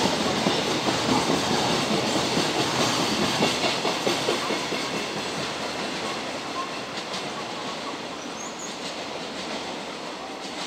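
Container flat wagons of a long freight train rolling past, their wheels clattering on the rails. The sound fades over the second half as the end of the train passes and draws away.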